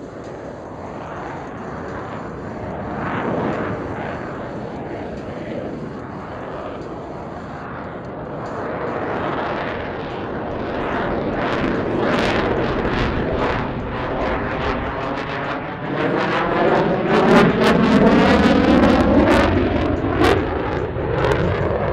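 Lockheed Martin F-22 Raptor jet noise from its two Pratt & Whitney F119 afterburning turbofans. It grows steadily louder as the fighter manoeuvres overhead and peaks in the last quarter, taking on a sweeping, whooshing tone as it passes closest.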